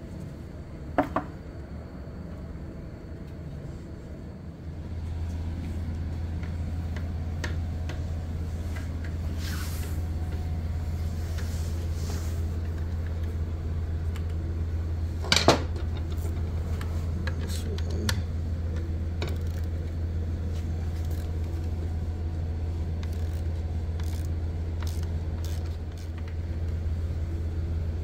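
Hand tools clicking and clinking on the metal heat sink and bolts of an electric motorcycle's motor controller as it is unbolted and lowered, with sharp clicks about a second in and near the middle. A steady low hum comes in about five seconds in and carries on under it.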